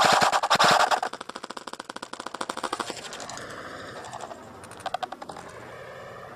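Airsoft electric rifle firing on full auto, a rapid rattle of shots that is loudest for the first second and carries on more faintly until about three seconds in, followed by a few scattered clicks.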